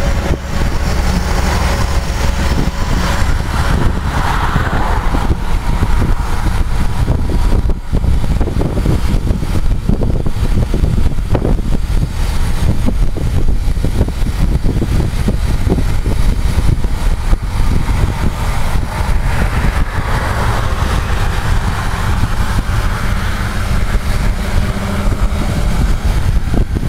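A vehicle driving at road speed across a bridge: a steady low engine and road rumble with tyre and wind hiss that swells twice.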